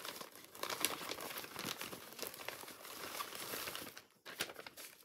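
Crinkling and rustling of crafting materials or packaging being handled, a dense crackle of small ticks with a brief lull about four seconds in.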